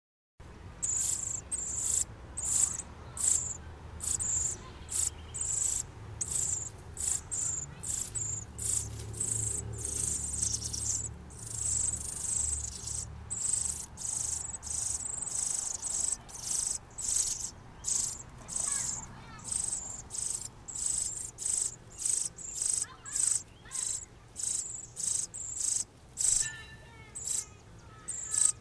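Cardinal nestlings begging: thin, high-pitched calls repeated about twice a second at an uneven rhythm, with a few lower chirps near the end.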